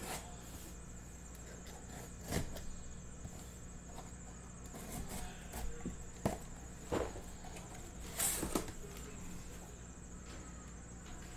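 A blade slitting packing tape along the seam of a cardboard box, then the box being handled and opened: a series of short scrapes and taps, with a steady electrical hum underneath.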